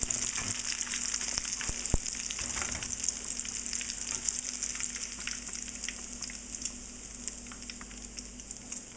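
Panko-breaded shrimp deep-frying in a pan of hot oil: a steady crackling sizzle with a single knock about two seconds in, easing slightly toward the end.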